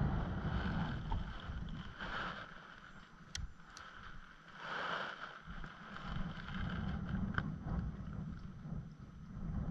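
Wind buffeting the microphone in a low, gusting rumble that dies down for a couple of seconds mid-way, with a few faint clicks.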